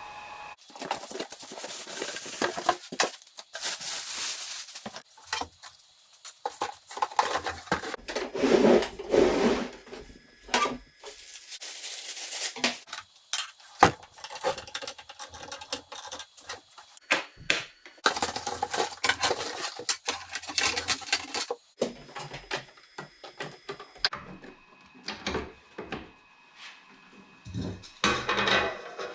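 Handling noise from unpacking a DeWALT DW734 thickness planer: irregular clatter, knocks and rustling of packaging and hard parts being moved, with no motor running.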